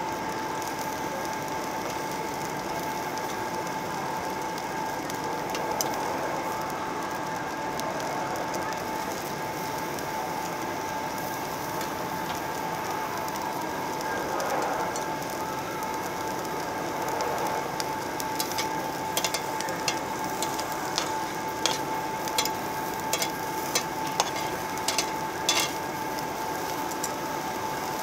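Garlic cloves, onion and mushroom sizzling on a tabletop Korean barbecue grill plate as a steady hiss. In the second half comes a run of sharp, irregular clicks and pops.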